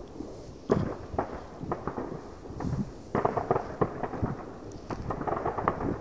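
Fireworks going off 1 or 2 kilometres away: a steady scatter of pops and bangs, with one louder bang just under a second in and a dense run of crackling pops from about three seconds in.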